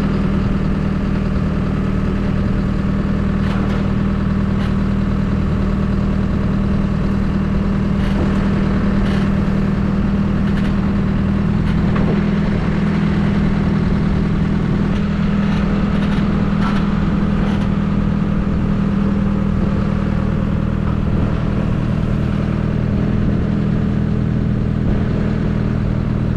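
A farm machine's engine running steadily at constant speed while it is used to move snowplows out of the way, with a few light clanks and knocks over it.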